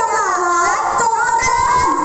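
A high voice singing through a stage sound system over live music, with crowd noise underneath.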